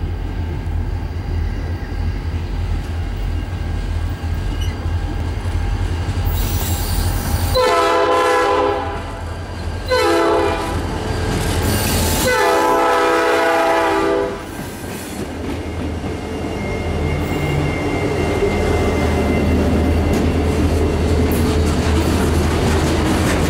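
Norfolk Southern EMD SD40-2 diesel locomotives, with their 16-cylinder two-stroke engines, passing slowly; the lead unit sounds its horn in three blasts, long, short, long, around the middle. Then mixed freight cars roll by.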